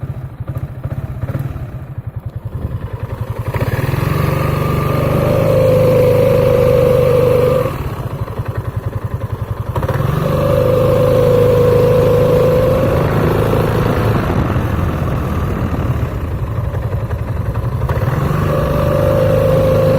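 Piaggio Beverly 500 scooter's single-cylinder engine idling, then rising three times as the centrifugal clutch takes up, each time with a loud droning hum from the variator. The hum comes from glazed, hardened clutch shoes together with an out-of-true clutch bell.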